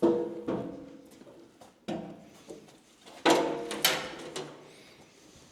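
A handful of sharp metallic clanks and knocks, each with a short ringing tail, from tools and metal parts being handled. The loudest come at the start and about three seconds in.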